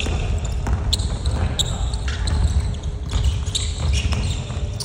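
Basketball game on an indoor hardwood court: a ball bouncing, players' footsteps and voices echoing in the gym, over a steady low rumble.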